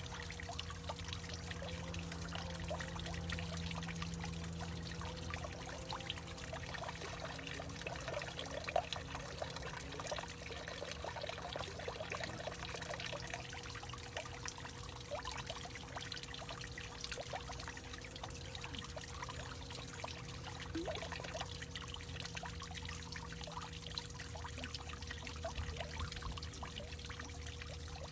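Water steadily trickling and pouring in a hollowed-out tree, with many small drips and splashes in a continuous stream.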